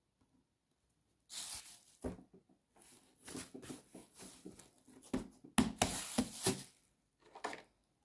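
Clear plastic bag crinkling and rustling in irregular bursts as a piece of dough is pulled out of it and handled on a table, with a couple of dull knocks.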